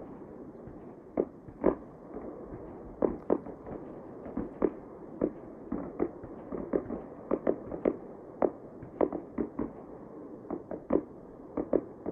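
Fireworks going off in an irregular string of sharp bangs, often two or three a second, over a steady low rumble.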